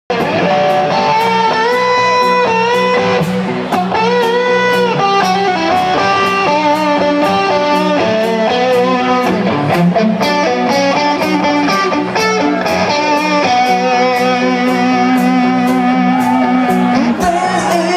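Live band playing: an electric guitar leads with sustained, bent notes over a steady drum beat of about two hits a second and a low held note underneath.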